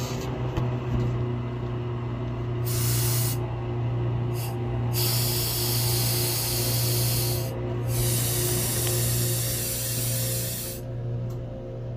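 Microwave oven running with a steady electrical hum. Loud hissing comes three times, for one to a few seconds each, starting and stopping abruptly.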